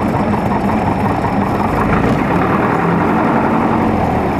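Jet airliner's engines and airflow heard from inside the passenger cabin: a loud, steady rumble with a low hum as the plane rolls on the ground after landing.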